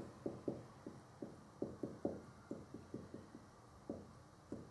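Light, irregular taps of chalk on a blackboard as writing goes on, about three taps a second.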